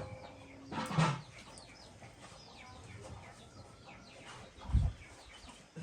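Chickens clucking amid many short, quick chirps from small birds, with a louder sound about a second in and a low thump near the end.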